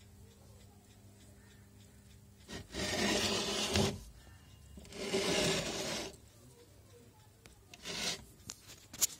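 A metal-cased voltage stabilizer being shifted and turned on a carpet-covered tabletop: two scraping rubs of about a second each, a shorter one near the end, and a sharp click just before the end, after a faint steady hum.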